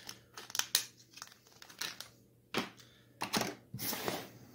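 Hands handling a 3D-printed plastic phone case and a cardboard phone box: irregular clicks, taps and rustles.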